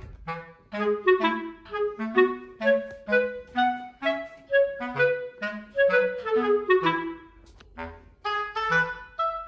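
Background music: a light melody of short notes in the manner of a woodwind, over a bass line, with a short break near the end.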